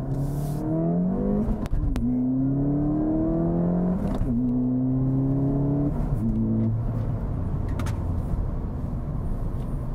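The 2014 Ford Fiesta ST's 1.6-litre turbocharged EcoBoost four-cylinder accelerates through the gears of its six-speed manual. The revs climb and then drop at upshifts about two and four seconds in. They dip again around six seconds in and settle into a steadier run under road noise.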